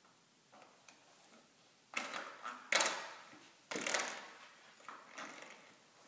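A door spring being batted by an Airedale puppy, twanging and rattling: a few faint taps, then three loud twangs close together about two to four seconds in, each ringing out and dying away, and a softer one near the end.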